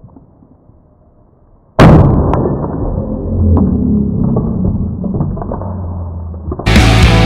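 A golf club smashes into a coffee machine filled with shaken sparkling water and water: one sudden loud crash about two seconds in, after a faint lull. A muffled low rumble with scattered small ticks follows for several seconds.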